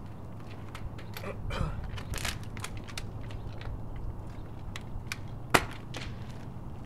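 Footsteps on asphalt with scattered small clicks and knocks over a steady low hum, and one sharp, loud click about five and a half seconds in.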